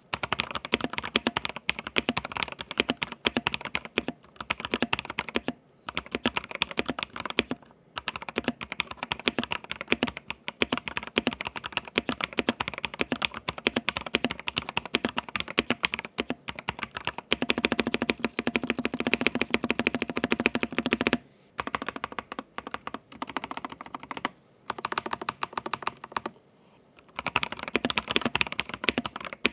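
Dareu EK75 75% mechanical keyboard in a plastic case being typed on: a fast, continuous run of keystroke clacks, broken by a few brief pauses, about 6, 8, 22, 25 and 27 seconds in.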